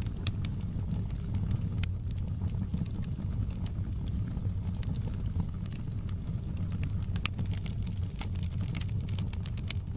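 Wood fire burning in a fireplace: a steady low rumble of the flames with irregular sharp crackles and pops, coming thicker near the end.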